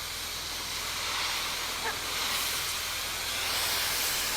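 Steady hiss of water spraying from a pressure-washing wand, pre-wetting the house surfaces to cool them before soft washing; it swells slightly in the second half.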